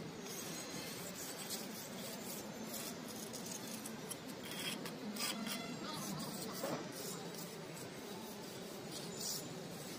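Irregular scraping and rubbing strokes of a hand pressing and smoothing wet cement mortar into a wall-floor corner to form a cove.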